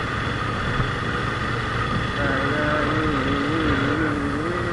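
Motorcycle riding at a steady pace: engine and wind rumble. About two seconds in, a wavering pitched tone joins it.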